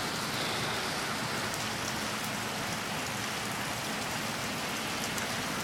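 Heavy rain pouring down, a steady even hiss of rain hitting surfaces with scattered drop ticks.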